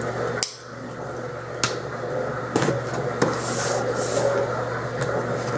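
Cardboard shipping box being handled and opened with a small hand tool: scattered knocks and taps on the cardboard, about six in all, with a short scraping rasp a little past the middle as the packing tape is worked at.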